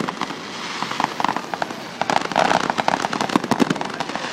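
Fireworks crackling and popping: many sharp cracks in quick succession, coming in denser clusters about halfway through and again a second later.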